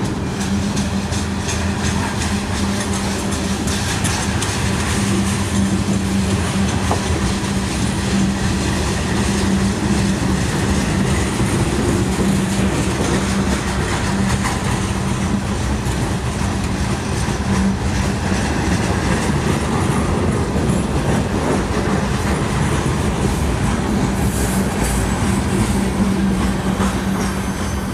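Freight cars of a slow mixed freight train rolling past, the wheels clacking over the rail joints, over a steady low hum.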